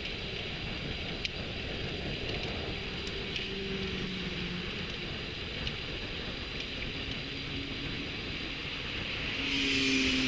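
Road bike rolling at about 37 km/h: steady wind rush and tyre noise, with a few faint ticks. Cars pass on the road alongside, and one passes louder near the end in a rising rush.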